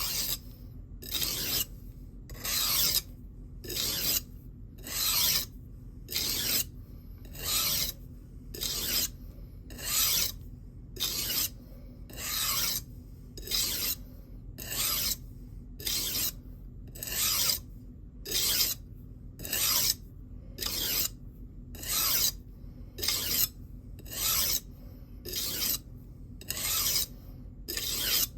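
Knife blade scraped in light, even strokes across a DMT extra-coarse (about 220 grit) diamond sharpening plate, about one rasping stroke a second, to remove the burr from a freshly formed edge.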